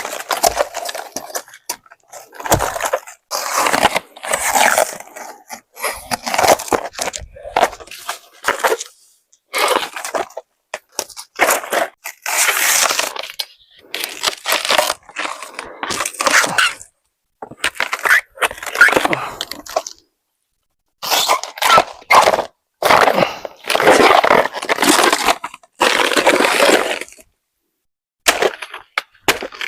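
Repeated crunching and cracking in irregular bursts of one to two seconds, with short pauses between them.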